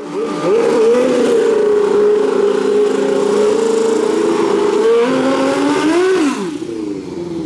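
Suzuki-engined Pro Street drag motorcycle doing a burnout, the engine held at steady high revs while the rear tyre spins. About five seconds in the revs rise and fall a few times, then drop to a lower steady note.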